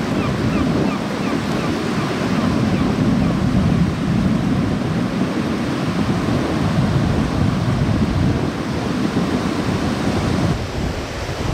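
Small sea waves breaking and washing up a flat sandy beach: a steady rush of surf.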